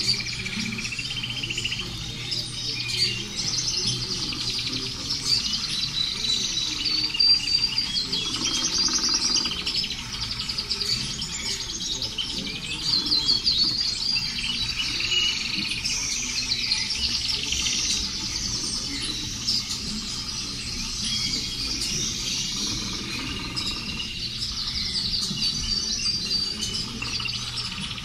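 Many small birds chirping and twittering without a break, over a low steady hum.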